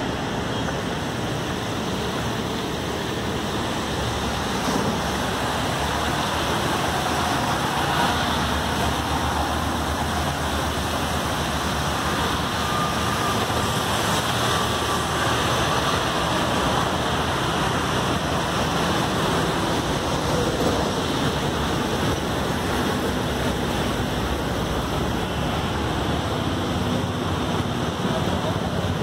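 Steady outdoor rush of water running over rocks in a shallow creek, mixed with the hum of road traffic.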